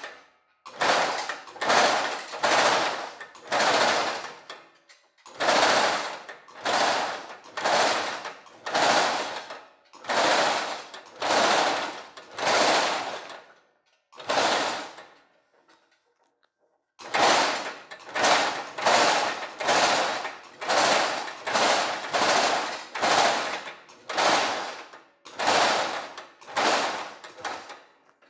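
Reciprocating power hammer pounding woven stainless steel mesh, running in short bursts of rapid hammer strokes, each about half a second long and coming one to two a second, with a pause of about two seconds midway as the mesh is repositioned.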